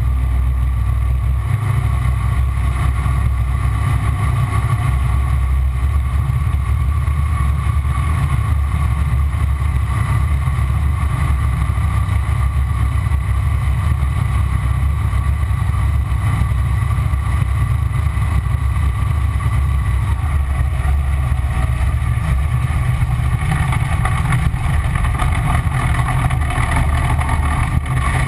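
Ford 557 cubic-inch V8 in a V-drive inboard boat running steadily under way: a loud, even low drone with a steady higher whine above it, and a little more hiss coming in near the end.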